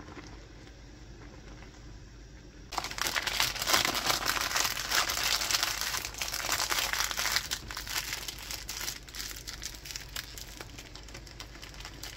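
Plastic Shin Ramyun instant-noodle wrappers crinkling and crackling as hands fold and crumple them, starting abruptly about three seconds in after a quiet start.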